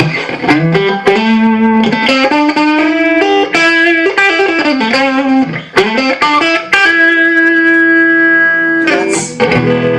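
Electric guitar played through a Masa Transatlantic TA-15 tube amp on its clean channel with no master volume, into a single 12-inch Celestion speaker cabinet. It plays a run of single notes, holds one long note about seven seconds in, then strikes a chord near the end.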